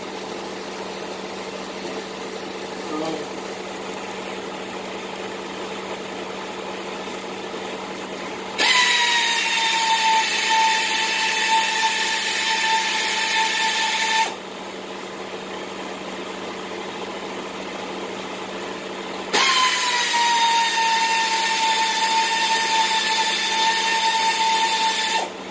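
Handheld power tool motor running in two bursts of about six seconds each, a steady whine that dips slightly in pitch just after each start, as it takes load.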